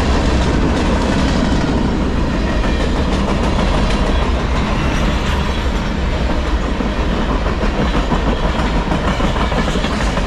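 Freight cars of a CSX manifest train rolling past close by. A steady loud rumble and rattle, with the wheels clicking over the rail joints.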